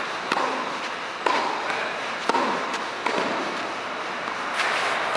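Tennis ball hit back and forth in a baseline rally on a clay court: sharp racket hits and ball bounces about once a second, each ringing briefly in the hall, over a steady hiss.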